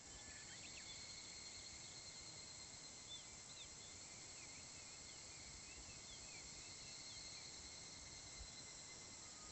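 Faint, steady chorus of insects in summer grass: an even high buzz with a couple of steady high tones, and scattered short, quick chirps throughout.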